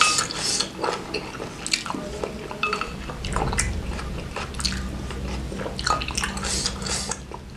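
Close-up eating sounds: a wooden spoon clicking in a ceramic bowl of spicy meatball broth, the broth sipped from the spoon, and chewing. Scattered short clicks and wet bursts.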